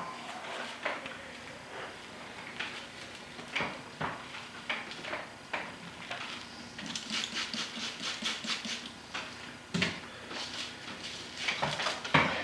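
Dry broomcorn straws rustling and clicking against one another as a bundle is handled and wrapped onto a broom handle: irregular crackles and light knocks, with a quick run of clicks about seven seconds in.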